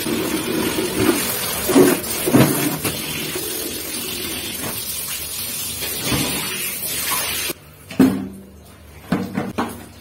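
Water running steadily, then shut off suddenly about three-quarters of the way through. Over it come dull thumps and knocks as a heavy, soaked blanket is pushed and lifted in plastic buckets.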